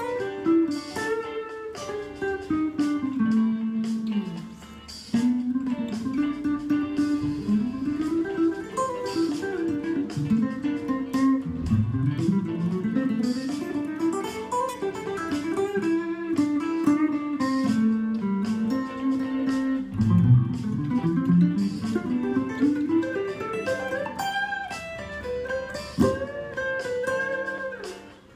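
Telecaster-style electric guitar improvising quick single-note lines, the notes often sliding or bending from one pitch to the next, with a brief pause about four seconds in.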